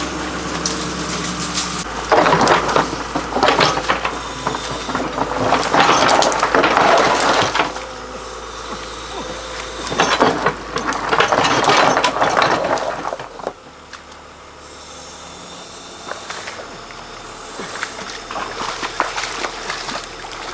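Large excavator running with a steady engine hum. Over it come two long, loud stretches of rough, crackling noise, one from about two seconds in and one from about ten seconds in. After that it turns quieter.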